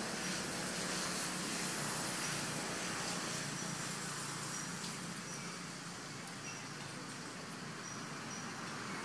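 Steady outdoor background noise: an even hiss with a faint low hum, and a few faint short high chirps now and then.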